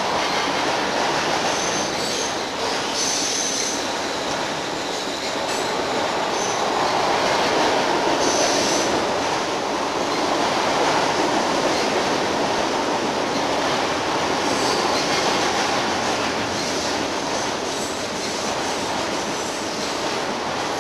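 Freight train cars rolling past on the rails: a steady rushing clatter, with short high wheel squeals a few times.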